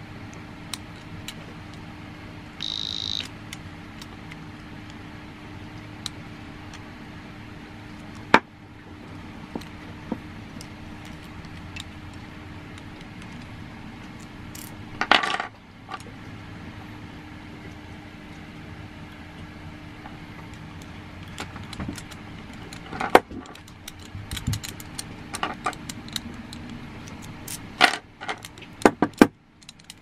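Alarm padlock giving one short high beep about three seconds in. After it come scattered sharp clicks and a dense run of metallic clicks and rattles from the key and steel lock body being handled, thickest near the end.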